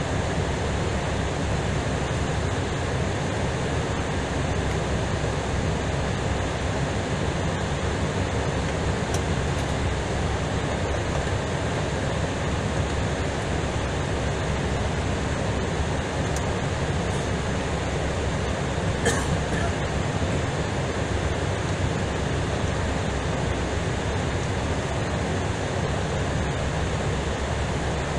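Steady rushing noise of an Airbus A320ceo taxiing at idle after landing, heard from the cockpit, with one short click about 19 seconds in.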